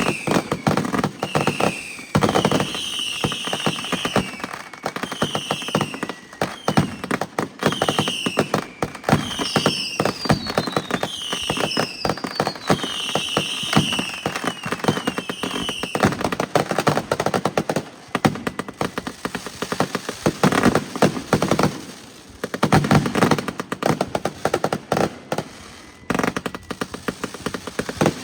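Fireworks going off in rapid succession: a dense run of sharp bangs and crackling pops, with heavier clusters late on. For about the first half, a short, high, falling whistle-like tone repeats about every second and a half.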